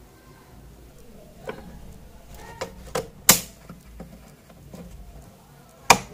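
Sharp clicks and clacks of steel drill bits and bit accessories knocking against a hard plastic DeWalt drill-bit case as they are set into and lifted out of its slots. About half a dozen clicks, the loudest a little past three seconds in and another just before the end.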